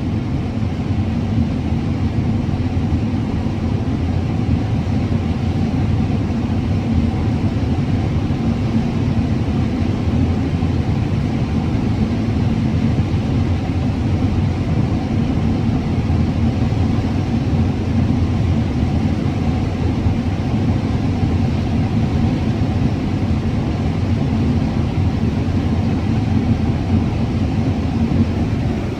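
Combine harvester running steadily while harvesting corn: a constant, loud, low engine and threshing drone that does not change.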